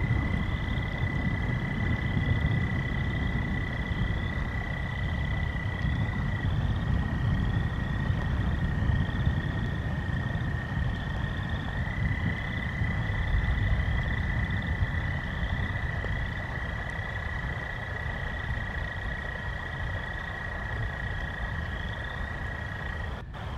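A chorus of frogs and toads calling at night: long, steady, high trills at two slightly different pitches that overlap and take turns, with a short higher call repeating about once a second, over a low rumble of the storm.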